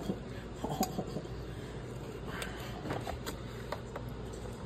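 Carving knife and fork working through a roast turkey in a foil roasting pan: a few scattered light clicks and scrapes over a steady low hum.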